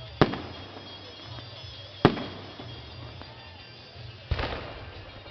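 Aerial fireworks shells bursting: three loud bangs about two seconds apart, each followed by a fading rumble of echo.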